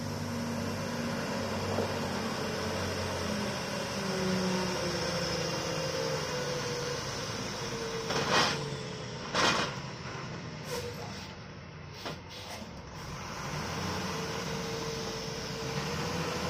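Heavily loaded Ashok Leyland 12-wheeler truck's diesel engine labouring slowly uphill, with a wavering whine from the axle. Two short, sharp hisses of air come about halfway through.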